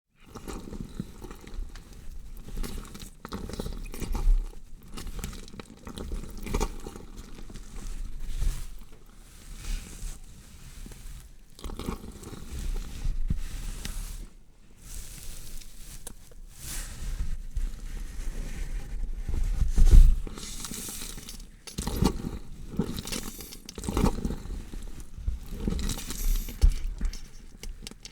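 Gore sound effect of a body being dissected: an uneven run of cutting noises that rise and fall in loudness, with the loudest hit about twenty seconds in.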